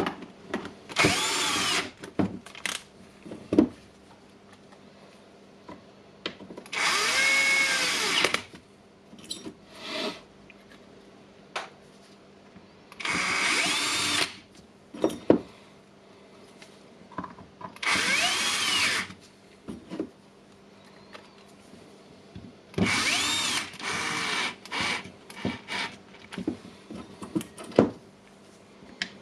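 A handheld power screwdriver driving screws in five short runs of a second or so each, its whine rising and then falling in pitch each time. Clicks and rattles of handling come between the runs. These are the housing screws going back into a cordless drill's plastic clamshell.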